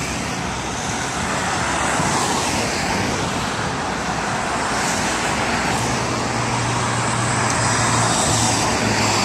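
Road traffic: a steady wash of car tyre and engine noise, with one vehicle's low engine hum standing out for a couple of seconds near the end.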